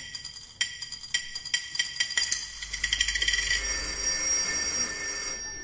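Metallic chime strikes with a bell-like ring, a few at first and then speeding up into a dense shimmering roll that keeps ringing and fades away near the end.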